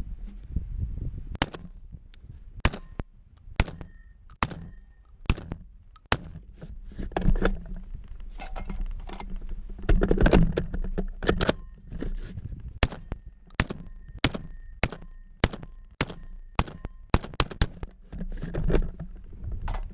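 VR80 semi-automatic 12-gauge shotgun firing a long string of shots, often less than a second apart with short pauses between runs. Some shots are followed by a brief ringing tone.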